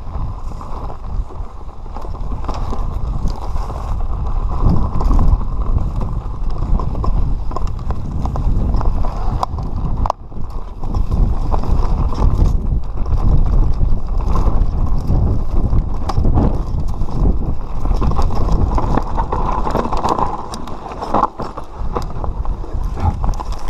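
Mountain bike descending a rough, rocky dirt trail: wind rushing over the microphone and the rumble of the tyres on dirt, with constant knocks and rattles as the bike crosses rocks and roots.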